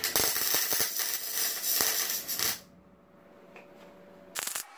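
MIG welder crackling as it lays a weld on the sheet-steel front panel: one burst of about two and a half seconds, then a short second burst near the end, as in tack or stitch welding.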